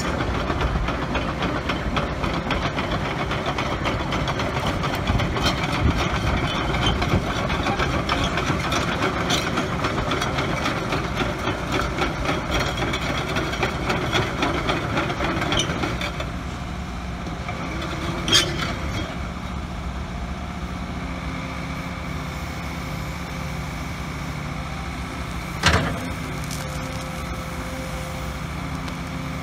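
Liebherr R904C crawler excavator's diesel engine running. It is louder and rougher for the first half, then settles about halfway through to a steadier sound with a held whine as the boom, arm and bucket are worked hydraulically. Two sharp clanks come in the second half.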